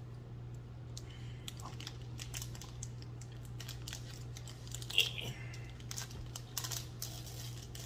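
Plastic wrapper of an Artek chocolate wafer bar crinkling and crackling as it is torn open by hand. The crackles are irregular, with one louder crackle about five seconds in.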